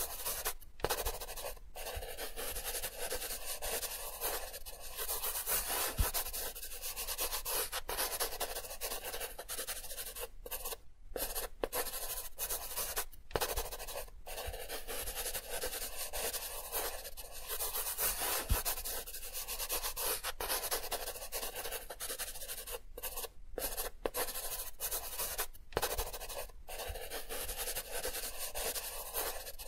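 Graphite pencil scratching and shading on paper, a steady scratchy hiss broken by a few brief pauses.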